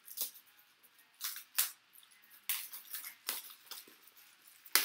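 Trading-card packs and cards being handled: a string of irregular crinkling and rustling crackles, the sharpest one near the end.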